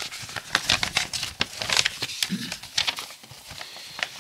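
Folded paper instruction sheet of a plastic model kit being unfolded and handled: a dense run of crisp paper rustles and crackles that thins out after about three seconds.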